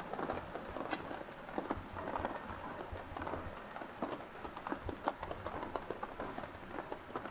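A small Pomeranian's paws pattering in quick, irregular light taps on a tent's floor mat as she trots about.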